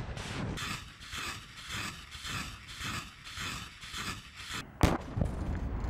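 Military weapons firing in rapid, even succession, about two to three shots a second, each with a hissing rush. Near the end a single sharp bang, the loudest sound, is followed by a low rumble.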